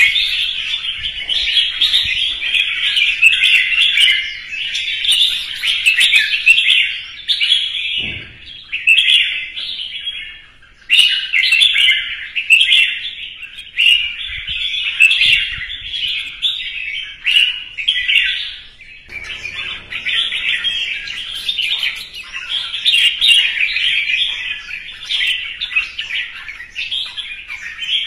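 Red-whiskered bulbul singing its competitive song: a fast, loud, near-continuous run of bright warbled phrases, with one short pause about ten seconds in.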